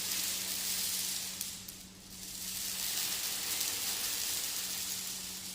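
Marbles rolling around inside a wire-mesh gourd sound sculpture, making a continuous hissing rush like an ocean drum. The rush fades about two seconds in, then swells again like a wave.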